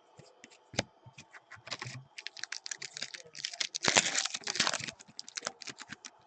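Trading cards being handled and flicked through the hands: a rapid run of light clicks and rustles, densest and loudest in the middle.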